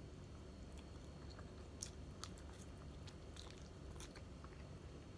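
Faint close-up chewing of fried tilapia eaten by hand, with a few short, sharp mouth clicks scattered through it.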